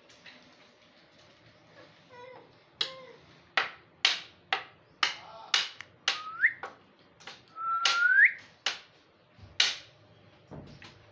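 A metal spoon tapped irregularly against a table, about a dozen sharp ringing clinks at roughly two a second. Two short rising whistles sound in between, the second a little longer.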